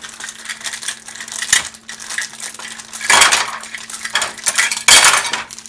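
Clear plastic wrapper crinkling and rustling in bursts as a small plastic toy is worked out of it, loudest about three seconds in and again near the end.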